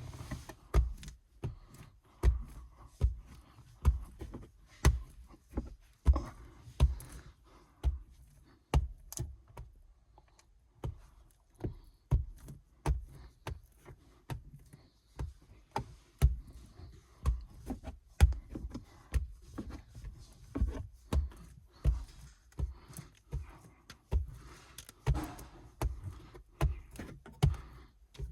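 A long run of dull thumps and knocks, irregular, roughly one every second.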